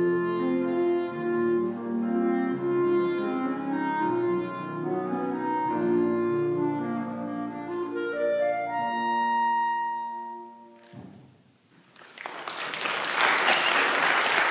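Clarinet and piano playing, closing on a long held final note that fades out about eleven seconds in. About a second later, applause starts.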